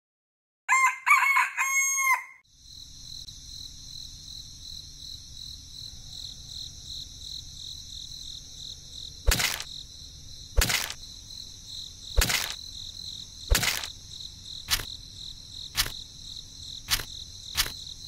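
A rooster crows once, about a second and a half long, shortly after the start. Then a steady high insect-like chirring with a low hum runs on, and from about nine seconds in come sharp clicks, one every second or so, as toy pineapples are set into the sand.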